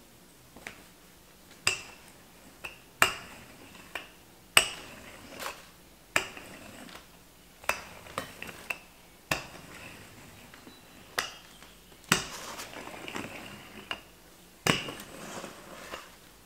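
Rolling pin working pie dough on a countertop: a series of sharp knocks spaced irregularly a second or two apart, with short rolling rasps after a few of them.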